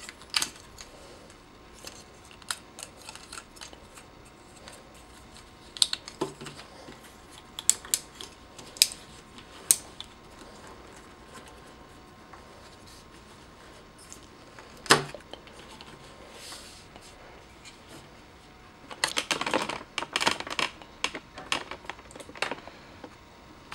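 Plastic clicks and snaps of a Mastermind Creations Felisaber transforming figure as its limbs and parts are flipped and pegged into cat mode by hand: sharp, isolated clicks spaced a few seconds apart, with a busier patch of clicking and handling near the end.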